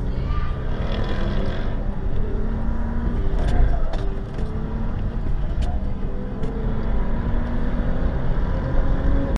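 Steady road noise of a car driving at speed: a dense low rumble of tyres and engine, with a few faint clicks around the middle.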